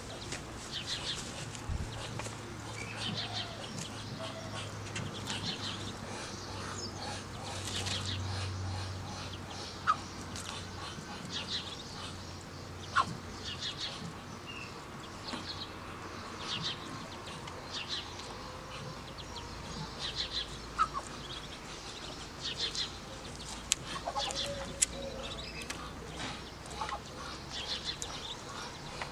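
Muscovy ducklings peeping over and over in short high clusters, with a few sharp clicks standing out now and then.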